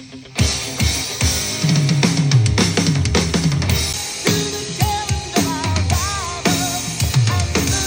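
Pop music with a drum kit beat and heavy bass, played through a Marshall Willen portable Bluetooth speaker; a melodic line comes in about five seconds in.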